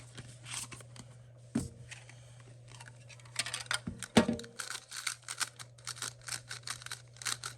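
A few separate plastic knocks, then from a little before halfway a fast run of sharp clicks, about five or six a second: a GAN magnetic speed cube being turned.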